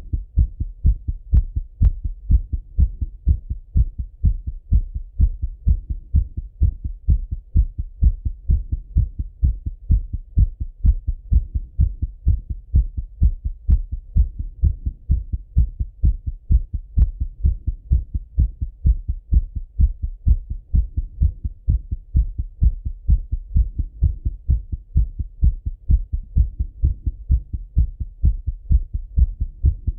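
A man's heart heard through a Littmann stethoscope: a steady, fast run of low lub-dub beats, the heart rate raised after running.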